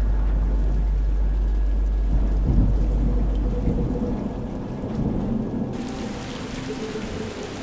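Performance soundscape of thunder and rain: a deep rumble that fades out about two and a half seconds in, then a rain-like hiss that comes in suddenly near six seconds, with a faint steady drone tone under it.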